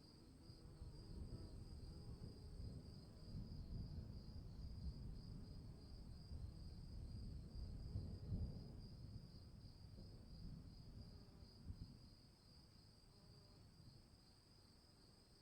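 Crickets chirping in a steady, fast-pulsing chorus, with a low rumble underneath that swells and then dies away in the last few seconds.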